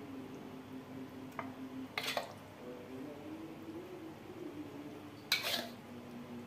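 A metal spoon scraping against a ceramic plate twice as sauce is spread over food, over a faint steady hum.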